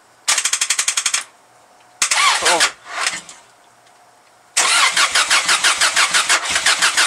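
1995 Subaru Legacy's EJ22 flat-four being cranked over by the starter on its first start attempt after months sitting and a turbo relocation. There are three goes: a short burst, a second short one that winds down in pitch, then a long steady crank from about halfway through, pulsing about five times a second.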